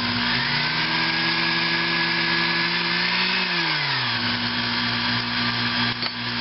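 Sherline mini metal lathe's motor running with a steady hum. About half a second in its pitch rises as the speed is turned up, holds, then falls back to a lower steady speed about three and a half seconds in.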